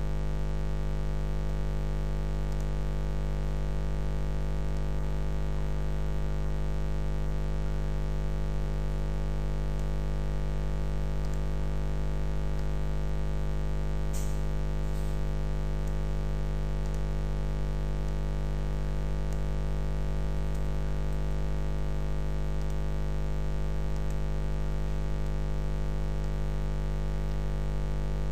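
Steady electrical mains hum picked up by the recording, a buzzing drone with many evenly spaced overtones that does not change. A faint click comes about halfway through.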